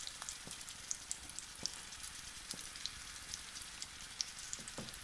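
Sea bass steaks frying gently in olive oil in an enamelled cast-iron skillet on low heat: a soft, steady sizzle with scattered small crackles and pops.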